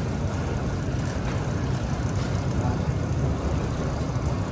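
Overhead electric hoist running steadily as it lowers a speedboat toward the water: a constant low motor and gear hum.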